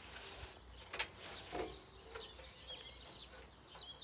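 A long metal stovepipe knocking against the van's storage compartment as it is slid out, a sharp knock about a second in and another with a short metallic ring soon after. Songbirds chirp in the background.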